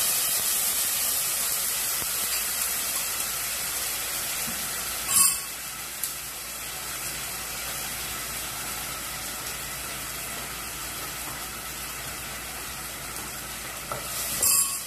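Blended tomato sizzling in hot ghee in a saucepan: a steady hiss that slowly dies down. There is a sharp knock about five seconds in.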